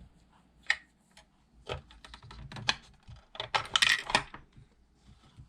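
Small plastic toy kitchen pieces clicking and clattering as they are handled and set in place, with a busier run of clicks about three and a half to four seconds in.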